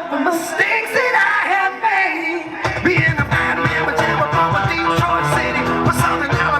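Live rock band playing, with a melodic line or voice over it. About two and a half seconds in, the bass and drums come in with a steady beat.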